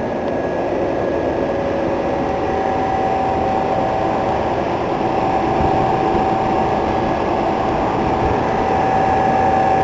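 Old commercial refrigeration condensing units running: compressors and condenser fans making a steady, pretty loud hum and rush of fan air, with a constant whine in it.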